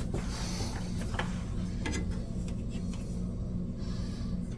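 A few faint scattered clicks and taps of parts being handled, over a steady low hum.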